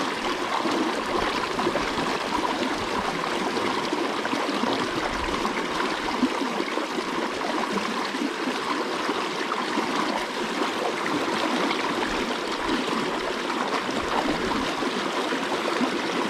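A small river's current rushing and churning around fallen logs: a steady flowing sound.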